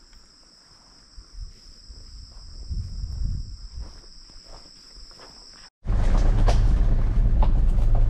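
Insects buzzing steadily at two high pitches, with footsteps in grass that grow louder for a moment about three seconds in. Just before six seconds the sound cuts abruptly to the loud low rumble of a four-wheel-drive driving on a rough dirt bush track, heard from inside the cab, with knocks and rattles.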